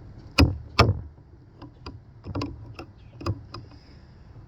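Swiss Army knife can opener blade levering and biting into the rim of a tin can, giving sharp metal clicks: two loud ones close together about half a second in, then lighter irregular clicks.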